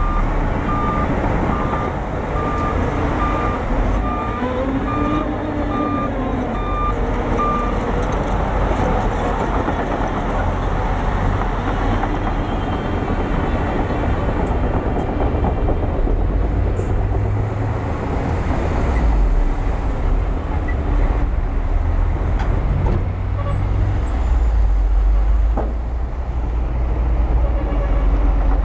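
Bulldozer's diesel engine running with a deep, steady rumble, while a back-up alarm beeps evenly for the first eight seconds or so.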